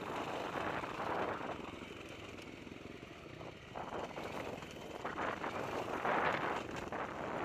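Dirt bike engine running under way, close up. The throttle eases off about two seconds in, then opens up again and the engine is loudest about six seconds in.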